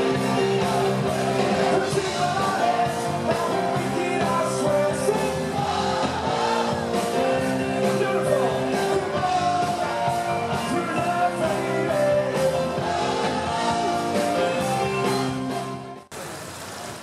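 Rock music with singing, playing at a steady level; it cuts off abruptly about sixteen seconds in, giving way to a quieter steady noise.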